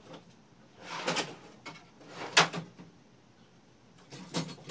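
Scrapes and clunks of someone fetching needle-nose pliers from among the shop tools: a burst about a second in, a sharper, louder clunk near the middle, and another burst near the end.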